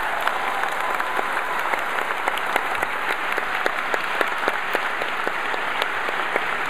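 Audience applauding: many people clapping steadily, with a scatter of louder single claps standing out from the mass.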